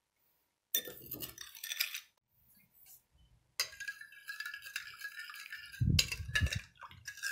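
Metal spoon stirring sugar and yeast into water in a glass bowl, scraping and clinking against the glass in two spells, the second longer and steadier. About six seconds in, there is a louder, dull knock.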